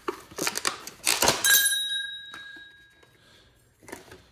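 Packaging and hard parts being handled with a run of clicks and rustles, then about a second and a half in a metal tool clinks and rings with a clear tone that fades over about two seconds.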